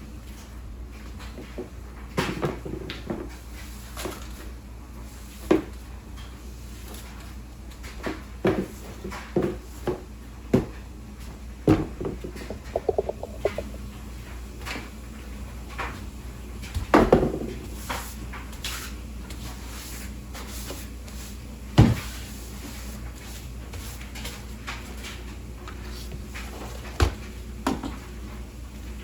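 Irregular knocks and clunks of household things being handled and put away, with cupboard doors shutting; the two loudest knocks come just past the middle and about three quarters through.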